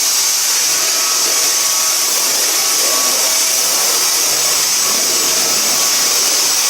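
Dyson vacuum cleaner running steadily: a loud, even, high-pitched rushing hiss of its motor and airflow, with a faint whine.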